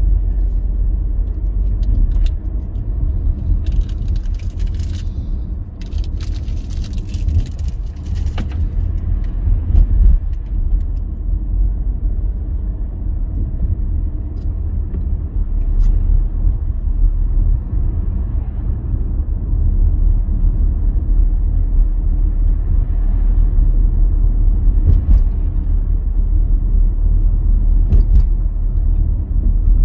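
Steady low rumble of a vehicle being driven on the road, with two short stretches of hiss about four and seven seconds in.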